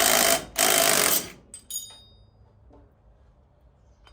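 Ratchet wrench clicking in two quick strokes as it turns a gear puller's bolt to draw the pulley off the sawmill shaft. A short metallic clink rings out about a second and a half in.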